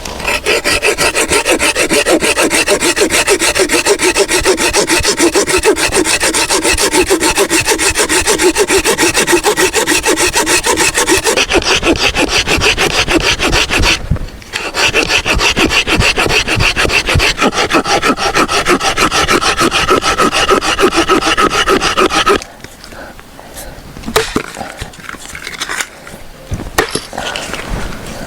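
Saw cutting through wood with steady rasping strokes, pausing briefly about 14 seconds in and stopping about 22 seconds in, after which there are only quieter handling sounds.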